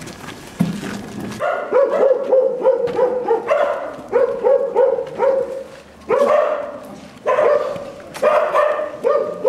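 A dog barking in fast runs of short barks, a couple each second, starting about a second and a half in, with a short break about two-thirds of the way through.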